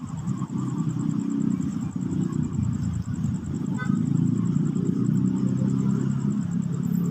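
Steady low rumble, with a faint rapid high-pitched ticking running over it.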